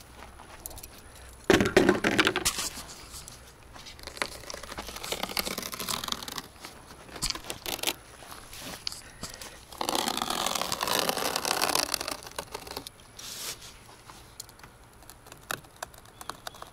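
Handling noises of material being worked: rustling and scraping with scattered clicks. The loudest stretches come about a second and a half in and again about ten seconds in.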